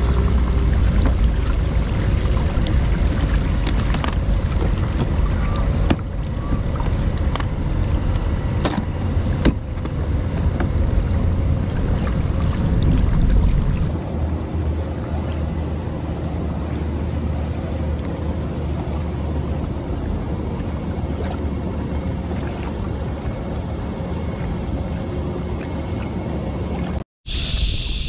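Water rushing past the hull of a moving kayak, with wind rumbling on the microphone. About halfway through the sound changes to a thinner, less rumbly wash of water and wind.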